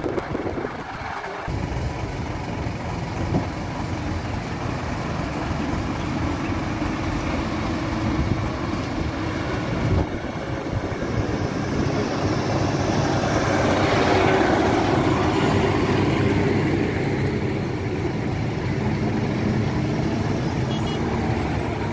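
Heavy lorry diesel engines running as a laden, tarpaulin-covered Ashok Leyland lorry comes round a hairpin bend toward the microphone. The engine grows louder as it approaches and is loudest about two-thirds of the way through.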